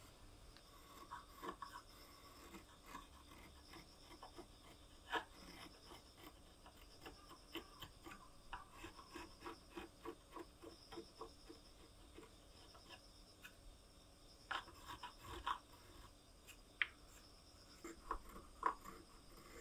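Small spokeshave shaving the bowl of a wooden spatula: faint, short scraping cuts, a few at first, then a quick run of strokes through the middle and a few sharper ones near the end.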